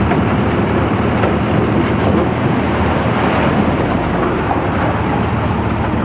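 Heavy diesel engines of a tipper truck and a Cat motor grader running steadily while the truck's raised body tips out its load of soil.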